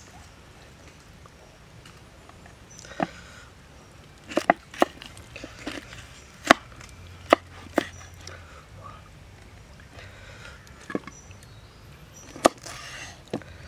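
Kitchen knife slicing cooked meat on a wooden cutting board: about ten sharp, irregular knocks as the blade strikes the board, with soft rustling between them.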